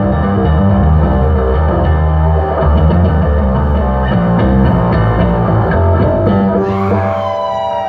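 Yamaha Attitude electric bass played solo and loud through a stage rig: a fast run of dense low notes. Near the end the low notes stop, a few high notes ring on, and the crowd starts cheering.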